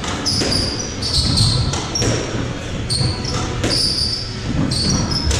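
Squash rally: the ball smacks off rackets and the walls in a quick exchange, a sharp hit every half second to a second, with short high squeaks of court shoes on the wooden floor.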